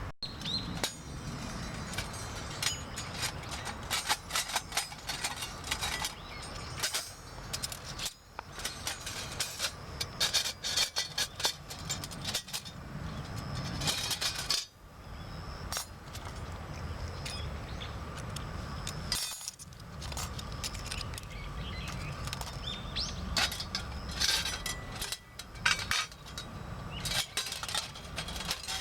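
Metal panels of a knock-down wood-burning fire pit clinking, knocking and scraping as they are handled and fitted together, in irregular bursts of sharp clicks.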